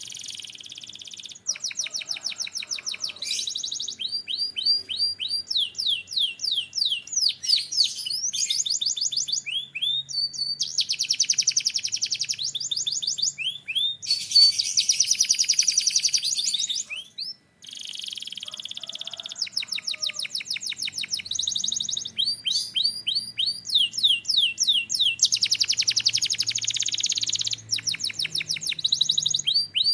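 Domestic canary singing a long, loud song of rapid trills and rolls of repeated high notes. It switches from one trilled phrase to the next, with one short break a little past halfway.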